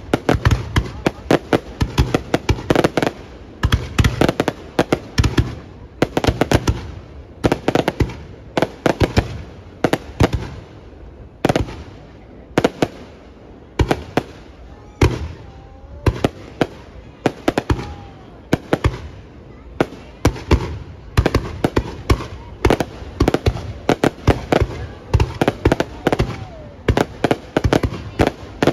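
Fireworks display: a rapid, continuous barrage of sharp bangs and crackling bursts, several a second, with only brief lulls between volleys.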